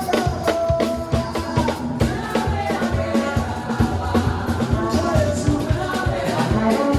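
Live band playing an upbeat gospel praise medley, with a steady drum beat, percussion and singing over it.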